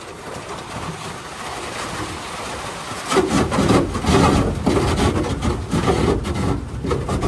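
Small boat under way, its hull knocking irregularly through the water over the noise of the running motor; the noise grows much louder about three seconds in.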